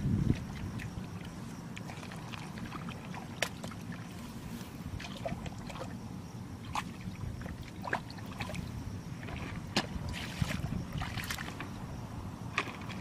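Hands groping and sloshing in shallow muddy water, with small splashes and drips scattered irregularly over a steady low rumble.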